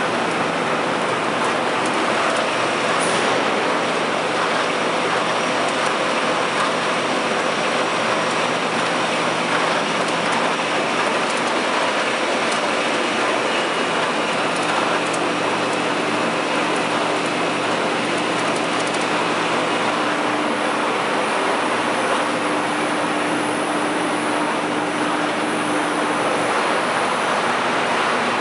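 Steady, even machinery noise with no breaks or clear rhythm: a Miller TP 104 sheet-fed offset printing press running.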